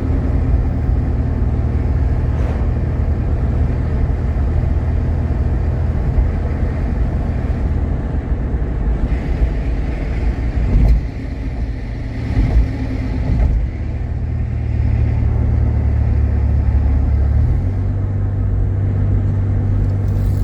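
Jeep Grand Cherokee's 3.7-litre V6 and road noise heard from inside the cabin while driving, a steady low drone whose pitch shifts about three seconds before the end. There are a couple of brief louder bumps midway.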